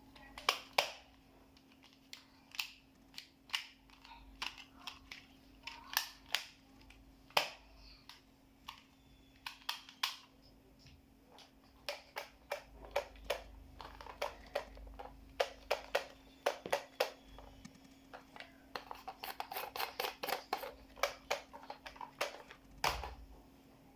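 Toy guns clicking and snapping as they are worked and fired: a long, irregular series of sharp plastic clicks, with a quick rapid run of clicks near the end, over a faint steady hum.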